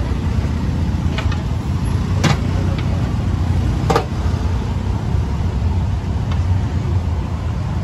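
Steady low rumble of roadside traffic, with a few sharp clicks about one, two and four seconds in.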